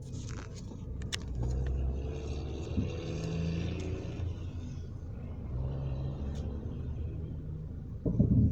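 Car running, with a steady low engine and road rumble, a few light clicks, and a louder short burst near the end.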